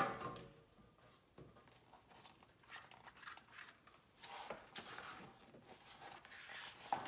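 A paperback picture book knocks against a metal music stand as it is set down, then its pages are opened and turned with soft paper rustling.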